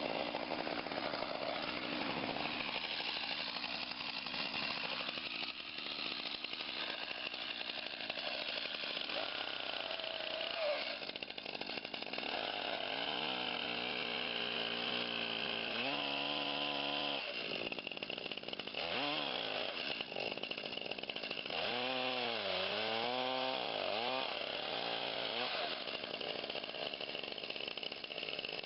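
Chainsaw running steadily. Partway through, a few short pitched sounds rise and fall over it.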